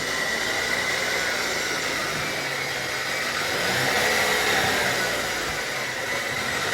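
GM 10-speed automatic transmission in a Cadillac running with a steady high-pitched whine over a continuous rushing noise, swelling slightly about four seconds in. It is the typical front-cover whine of this gearbox, here appearing at about 80,000 km.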